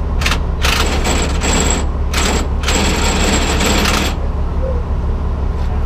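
Impact wrench run in four bursts, two short and two of over a second each, hammering with a high whine, and stopping about four seconds in; a diesel engine idles underneath.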